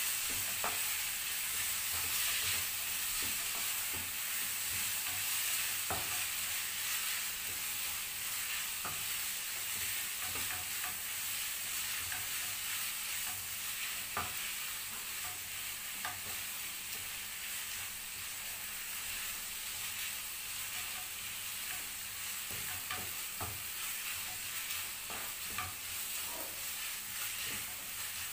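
Noodles and vegetables sizzling in oil in a granite-coated frying pan as they are stirred and tossed with a wooden spoon, a steady hiss with scattered knocks of the spoon against the pan.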